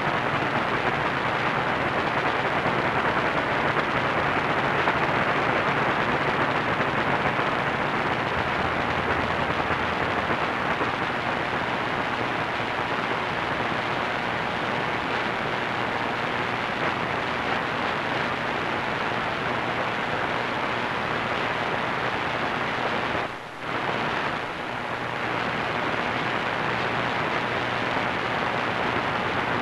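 Steady hiss and static from an AM radio receiver tuned to a weak, distant station on 1490 kHz, with a short dropout about three-quarters of the way through.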